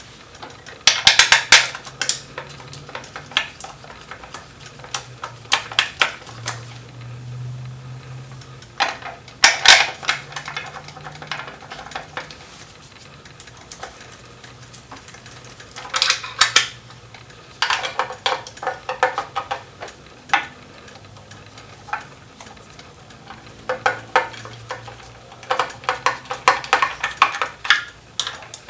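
Hand socket ratchet clicking in short rapid bursts, about six times, as the countershaft sprocket cover bolts are run in and snugged.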